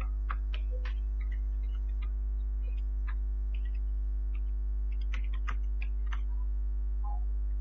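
Steady electrical mains hum with a stack of even overtones, the loudest sound throughout. Over it come scattered soft clicks of computer keyboard typing.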